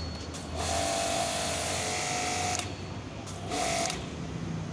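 Electric high-pressure washer running with a whine and a hiss of spray for about two seconds, cutting off, then a short second burst just after three seconds in. The pump is switching on and off cleanly with the trigger, its on/off fault cured by a new pressure retaining valve.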